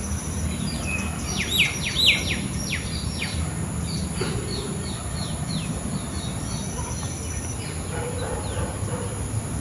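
A bird calling in runs of short, quick, falling whistled notes, over a steady high-pitched insect drone and a low rumble of outdoor background noise.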